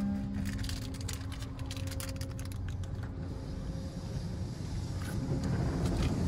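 Belanger car wash tunnel equipment, muffled through the car's cabin: a steady low rumble of machinery, with a dense patter of water spray hitting the windshield from about half a second in to about three seconds in. Near the end, pink foam drizzles onto the glass as the rumble grows a little louder.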